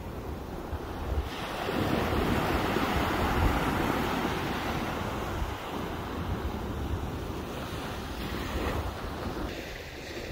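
Small waves breaking and washing up a sandy beach, with wind gusting on the microphone. The surf swells louder about a second and a half in, then eases off.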